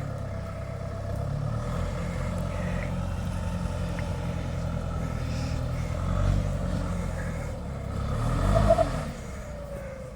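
Off-road vehicle engine labouring under load up a steep dirt track, with a short swell about two-thirds through and a louder rev near the end that then drops back.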